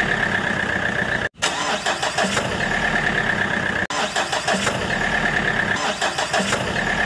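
Motor-vehicle engine sound running steadily, in a repeating loop. It breaks off suddenly for a moment about a second in and dips briefly again about four seconds in.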